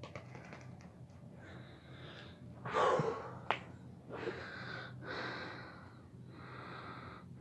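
A person breathing heavily in a run of loud breaths, the strongest about three seconds in, with one sharp click just after it.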